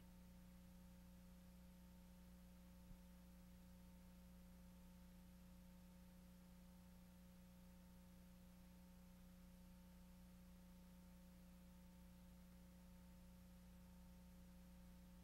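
Near silence: a faint steady electrical hum and hiss, with one small click about three seconds in.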